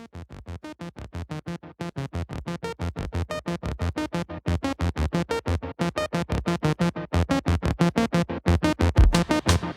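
Electronic music: rapid, evenly repeated synthesizer notes, about seven a second, growing steadily louder.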